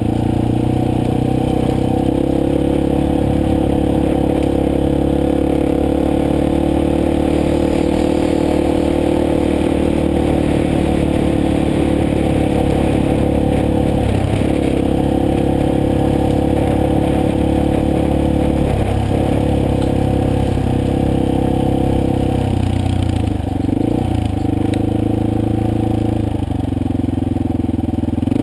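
Motorcycle engine running steadily under way, its pitch dipping briefly and picking back up a few times in the second half as the throttle is eased and reopened.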